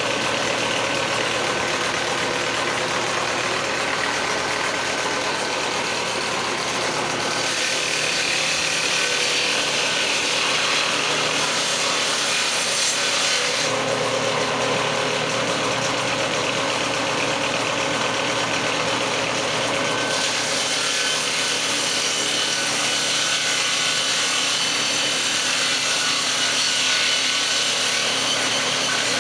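A power tool running steadily on wood, with its tone shifting about 7, 14 and 20 seconds in.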